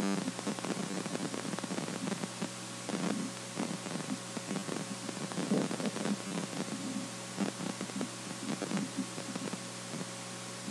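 Steady electrical hum and hiss, with a few faint short sounds scattered over it.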